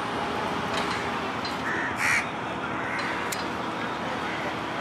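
Crows cawing several times, the loudest call about two seconds in, over the steady hum of the ferry's engine.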